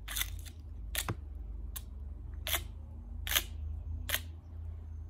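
A thin stick scraped across the scales of a pinecone like a guiro, in short scraping strokes about once every 0.8 seconds, six or so in all.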